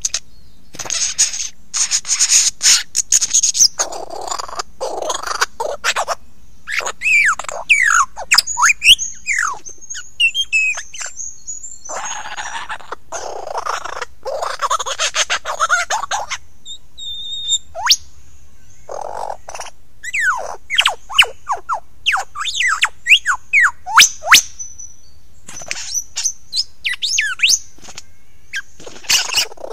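Lyrebird singing close up: loud harsh, crackling passages alternate with runs of quick whistled notes that sweep downward in pitch, with short pauses between phrases.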